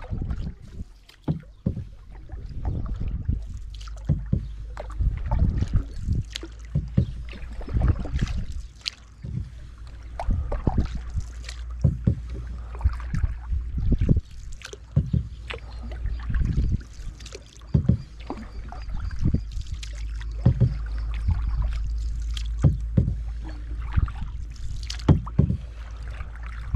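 Kayak being paddled with a double-bladed paddle: stroke after stroke of the blades dipping and pulling through the water, with irregular splashes and sharp knocks, over a steady low rumble.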